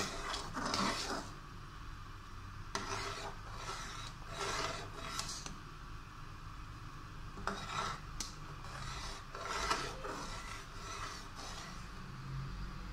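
A ladle stirring thick simmering lentil dal in a pressure cooker pot, scraping against the pot in a string of short, irregular rasping strokes.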